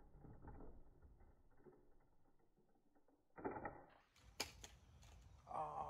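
Faint whirring and rattling of a small toy monster truck's motor and gears as it drives up a plywood ramp. A louder burst comes about three and a half seconds in as it launches, then a few sharp knocks as it comes down, and a voice starts just before the end.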